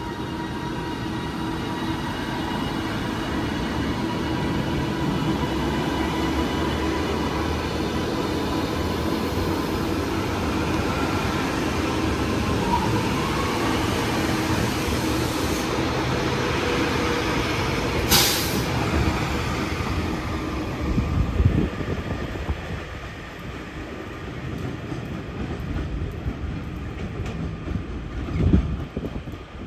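Avanti West Coast passenger train running along the platform close by, a steady rumble with a faint hum, and a short sharp high-pitched noise about two-thirds of the way in. It drops to a quieter, more distant train sound for the last few seconds.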